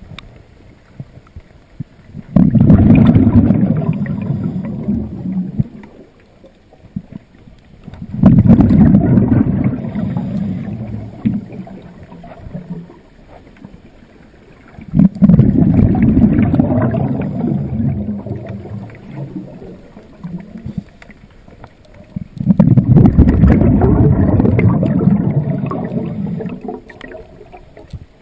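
A scuba diver's exhaled air bubbling out of the regulator past the microphone, four exhalations of about three to four seconds each, roughly every six to seven seconds, with quieter pauses between breaths.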